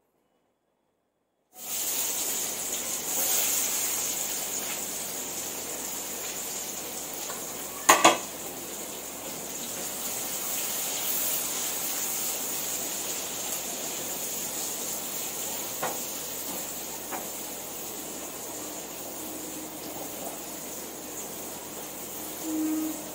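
Food frying and sizzling in a pan on a gas stove, starting after a moment of silence, with a utensil stirring in the pan. A sharp metal clatter of utensil against pan comes about eight seconds in, and a few lighter clinks follow later.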